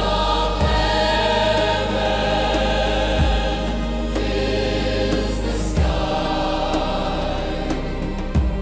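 Worship music with a wordless choir singing held chords over low sustained bass notes that change every few seconds.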